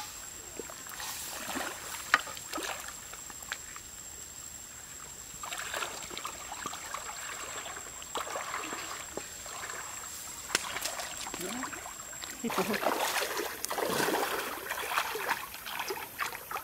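Water simmering in a wok over a wood fire, with a few sharp knocks of a wooden spatula against the pan and a thin steady high tone behind. About twelve and a half seconds in this gives way to louder splashing and sloshing of people wading in a shallow stream.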